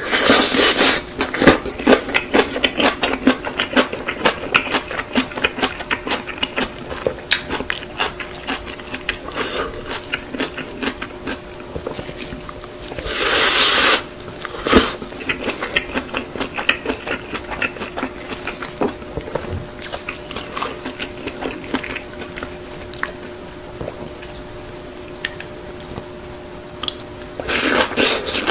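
Close-miked wet chewing and mouth smacking of kimchi-wrapped spicy stir-fried noodles, a constant patter of sharp little clicks. A loud slurp comes about halfway through and another near the end as noodles are sucked in, over a faint steady hum.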